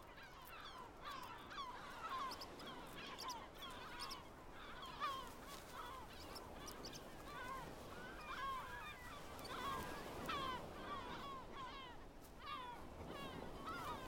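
Yellow-legged gull colony calling: many short, overlapping calls, some with a rising or falling bend.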